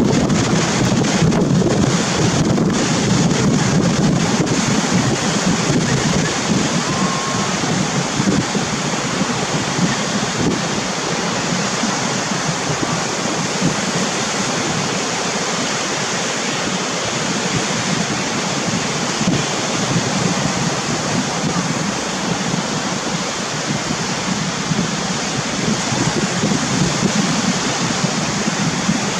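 Rough surf: a steady rush of waves breaking, with wind buffeting the microphone.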